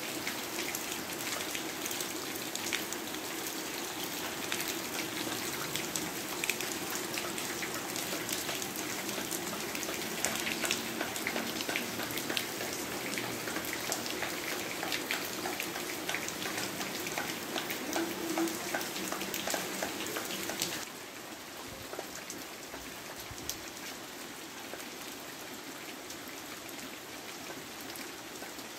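Steady rain falling, with many individual drop hits on roofs and ground. About two-thirds of the way through it drops in level and softens.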